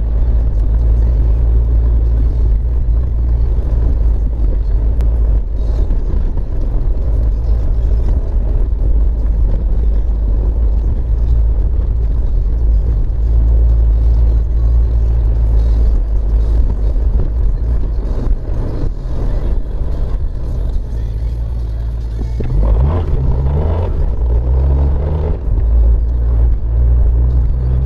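Steady low rumble of a car driving on a wet road, heard from inside the cabin: engine and tyre noise. From about 22 to 26 seconds in, the engine note shifts up and down as the car changes speed.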